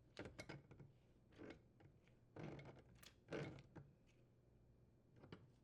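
Faint clicks and scrapes, in a few short clusters about a second apart, of hands attaching the water supply line to the dishwasher's inlet port and tightening the fitting.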